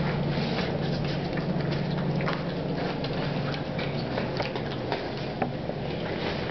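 Puppy eating from a stainless steel bowl: quick, irregular lapping and chewing with small clicks and taps against the metal. A steady low hum runs underneath.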